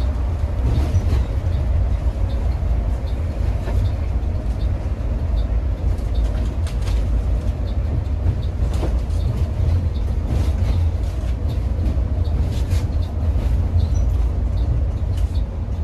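Cabin noise of a Mercedes-Benz O500R 1836 coach under way: a steady low rumble of engine and road, with faint light ticks and rattles over it.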